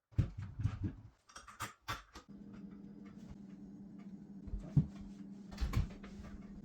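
Clicks and knocks of door-lock hardware being handled and fitted, then a steady low hum starting about two seconds in, with a few more sharp knocks near the end.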